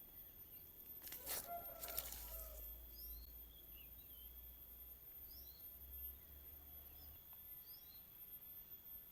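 Faint outdoor ambience with short, repeated bird chirps, and a brief rustle a little over a second in.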